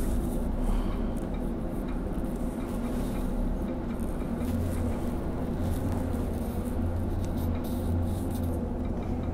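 Steady low drone of a Scania double-decker coach heard from inside its passenger cabin while it rolls at low speed. The low hum grows stronger about halfway through.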